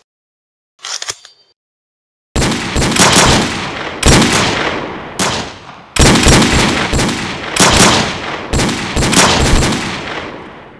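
Gunfire sound effects: long, rapid bursts of automatic-weapon fire starting about two seconds in, several bursts one after another, with a trailing echo fading out at the end.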